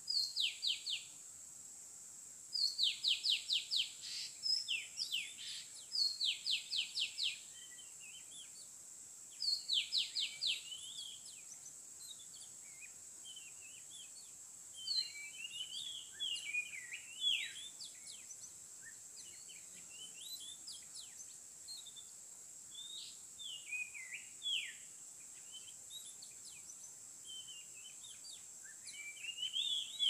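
Oriental magpie-robin song: several quick series of sharp down-slurred whistled notes, about five or six to a series, in the first ten seconds, then looser varied chirps and warbles. A steady high tone runs underneath.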